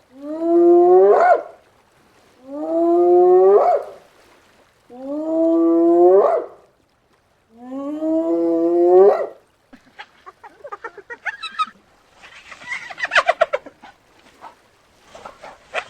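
Spotted hyena whooping: four long calls about two and a half seconds apart, each sliding upward in pitch. From about ten seconds in, a run of rapid, broken short calls follows.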